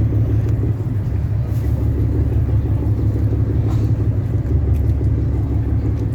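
Steady low engine rumble, without a break.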